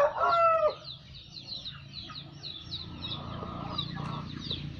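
The end of a rooster's crow, falling in pitch and cutting off within the first second, followed by small birds chirping with many quick, short falling chirps.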